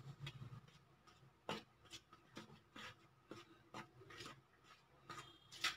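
Steel spoon stirring spice powders into curd in a plastic bowl, scraping the sides: faint scraping strokes, about two a second.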